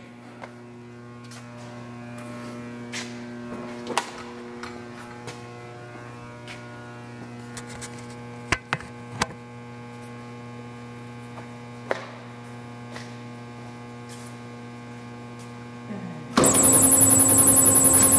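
A low steady electrical hum with a few faint clicks, then about sixteen seconds in a Doall vertical bandsaw starts abruptly and runs loudly, with a rushing noise and a high whine.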